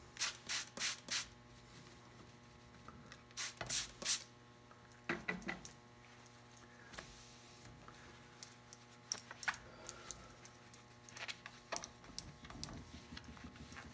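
Trigger spray bottle squirting polish onto a varnished hull: four quick squirts, then two or three more about three and a half seconds in. A cloth then wipes over the finish with light rubs and taps, over a faint steady hum.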